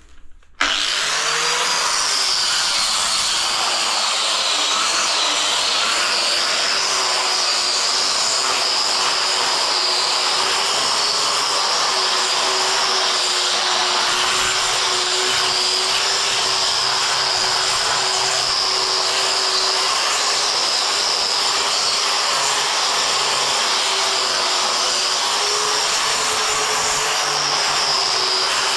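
Angle grinder fitted with a cup grinding wheel starts about half a second in and runs steadily, grinding the floor surface with a constant high whine over a rough grinding noise.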